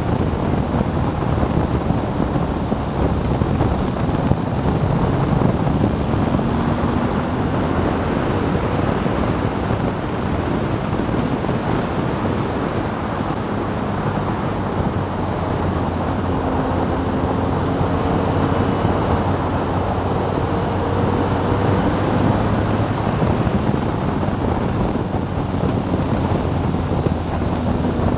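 Wind rushing over the microphone while riding a BMW R 1200 GS Adventure motorcycle at road speed. Underneath, the flat-twin boxer engine runs, and its note rises now and then with the throttle.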